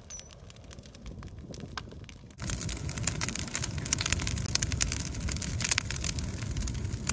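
Bonfire of dry cleared brush burning: dense crackling and popping of burning twigs over a low rumble of the flames, much louder from about two and a half seconds in.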